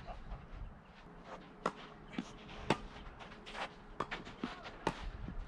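Tennis ball being struck by rackets and bouncing during a doubles rally on an artificial grass court: about six sharp knocks over four seconds, with a scuff of footsteps in between.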